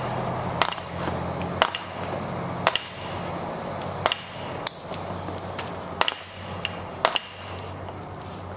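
Exhaust pipe cutter being worked around 1-inch ABS plastic pipe: sharp clicks roughly once a second, eight in all, over a steady low hum.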